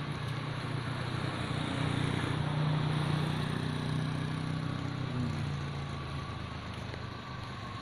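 Vehicle engine idling steadily as it warms up after sitting unused for a long time, a little louder a couple of seconds in, then easing back.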